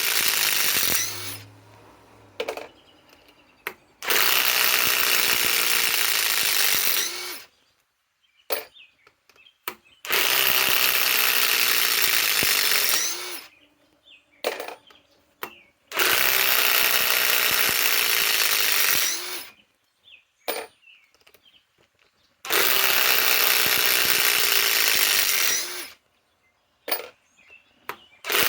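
Ridgid R872081 half-inch compact impact wrench hammering in reverse, backing out 4-inch timber lock screws. One run ends about a second in, then four more runs of about three seconds each follow, each dying away as the motor winds down, with short clicks between them. Another run starts right at the end.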